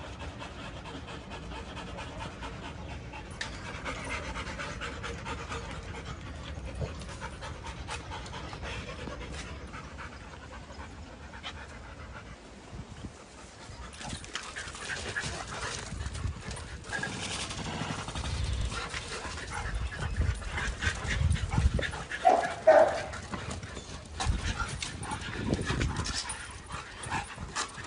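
Rottweilers panting. In the second half the dogs play and run, with scuffling and a few short, sharp dog sounds, the loudest about 22 seconds in.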